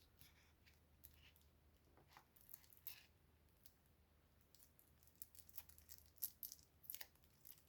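Faint packaging handling as a small box is opened and its contents unwrapped: scattered light clicks and crinkles, busier in the second half.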